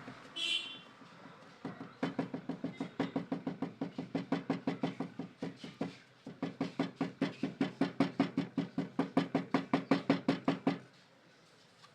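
Rapid, even knocking, about five knocks a second, starting about two seconds in and stopping suddenly about two seconds before the end, with a short break midway.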